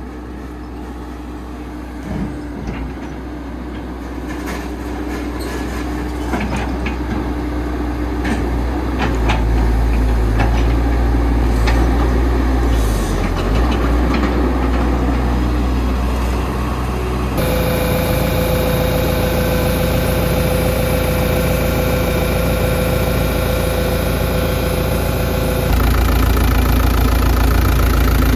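Caterpillar 312C excavator's diesel engine running, growing louder over the first several seconds, with scattered clicks and knocks. About two-thirds through, the sound changes abruptly to steadier running with a steady whine, and it shifts again near the end.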